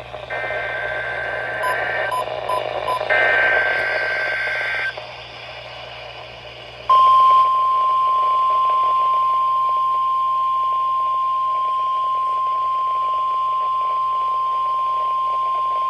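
NOAA Weather Radio Emergency Alert System test heard through a radio. Two screechy bursts of SAME header data, with a few short beeps between them, give way to quieter radio hiss. About seven seconds in, the steady 1050 Hz warning alarm tone starts and holds for about nine seconds.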